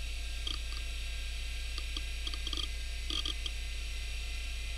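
Western Digital Caviar 2340 IDE hard drive seeking in several short bursts of clicky head chatter, heard over a steady low hum, as Windows 95 writes to the disk while shutting down.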